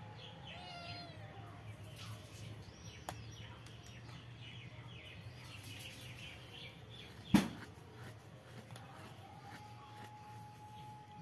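Faint background with a few small chirping calls, broken by a single sharp knock about seven seconds in; a faint steady tone comes in near the end.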